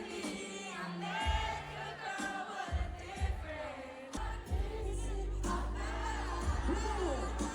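An R&B/pop song playing, with singing over a deep bass beat that drops out briefly near the start and then holds steady.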